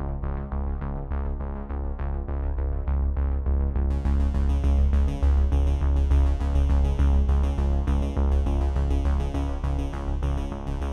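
Electronic background music: sustained synthesizer chords over a deep bass with a quick, even pulse; a brighter high layer comes in about four seconds in.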